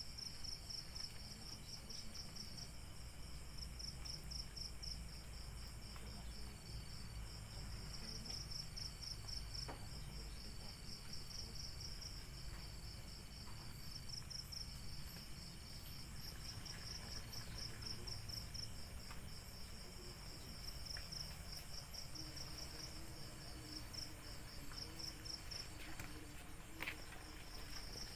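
Crickets chirping at night: high-pitched trills of rapid pulses, each lasting a couple of seconds with short pauses between, over a low steady background rumble.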